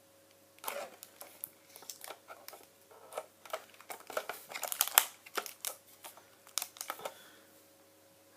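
Handling noise: a run of irregular sharp clicks, knocks and rustles for about six seconds, as objects are picked up and moved about, loudest a little before the middle.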